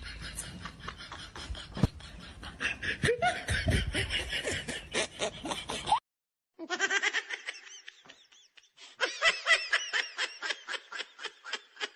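Laughter in quick, evenly spaced 'ha-ha' pulses. It cuts off abruptly about six seconds in to dead silence, then starts again a moment later and runs on.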